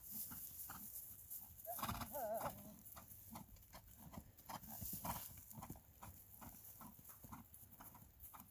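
Ridden horse's hooves striking dry grass turf in a steady rhythm, about two or three beats a second. About two seconds in, a short wavering call is heard over the hoofbeats.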